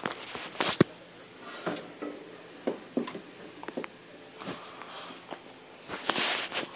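Scattered light clicks and knocks, irregular and about half a second to a second apart, from the old metal window fan being handled, with a short hiss near the end.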